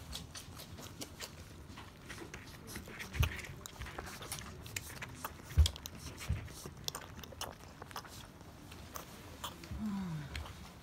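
Akita puppies suckling from their mother: rapid wet smacking and clicking of nursing mouths, with a few dull bumps, the loudest a little past the middle. A short falling whine near the end.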